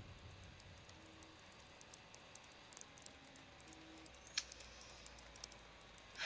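Near silence with faint scattered clicks, one sharper click a little over four seconds in, and a few brief faint low tones.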